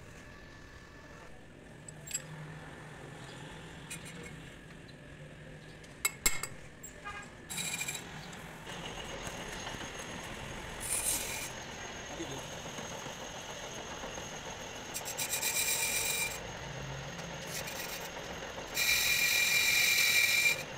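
Hand-tool work on metal: a few sharp clicks, then four bursts of rasping, scraping strokes with a metallic ring. The longest and loudest burst comes near the end.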